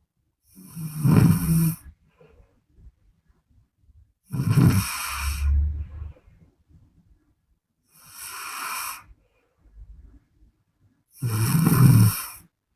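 A sleeping woman snoring: four rasping snores about three and a half seconds apart, the third one softer.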